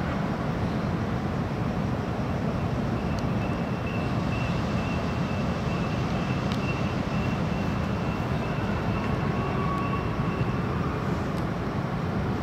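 Steady low rumble of city traffic and urban background noise. A faint high whine comes in about three seconds in and fades out near the end.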